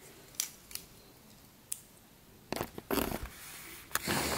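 Hands handling a small plastic toy dinosaur figure close to the microphone: a scattered series of sharp clicks and brief rubs, coming faster in the second half.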